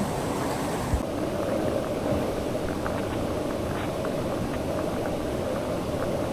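Steady rush of river water with a few faint small splashes.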